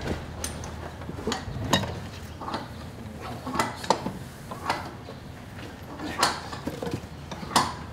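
Sharp metallic clicks and clinks of clamps and hand tools being worked against a steamed oak plank held to a wooden boat frame, coming at uneven intervals, about one or two a second.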